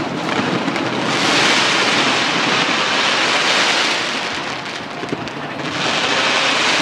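Massed fireworks crackling and hissing in a dense, continuous wash. It swells about a second in, eases off after about three seconds, and surges again near the end.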